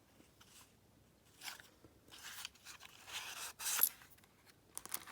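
Cardboard padlock box being handled and opened: a few rustling, scraping bursts, the loudest ending in a sharp click just before the four-second mark.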